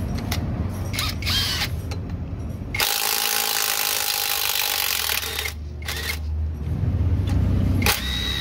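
Cordless impact wrench on the flywheel bolts: a short burst about a second in, then a run of nearly three seconds with a steady whine under the rattle, and two more short bursts near the end. A low steady hum runs underneath.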